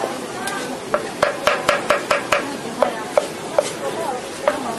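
A cleaver chopping green chili peppers in a metal wok: sharp knocks of the blade against the pan, a quick run of about five in the middle and a few scattered others, over a steady hiss.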